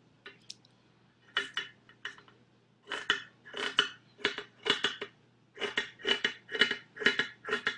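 Scissors snipping through T-shirt fabric while cutting a strip across it, with a run of short, crisp snips about two or three a second. The snipping begins about a second and a half in.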